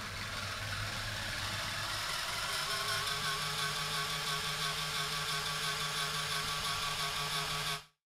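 Small DC gear motors driving a Raspberry Pi robot's wheels, running with a steady whir. The pitch steps up about three seconds in as the commanded speed is raised. The sound cuts off suddenly just before the end.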